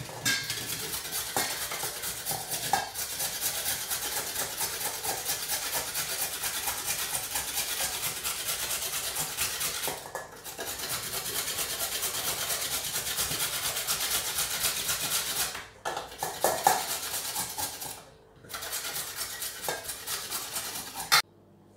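A raw carrot being grated on a flat metal hand grater in a stainless-steel bowl: quick, continuous rasping strokes with metal scraping and the odd clink on the bowl. It stops briefly a few times and cuts off abruptly near the end.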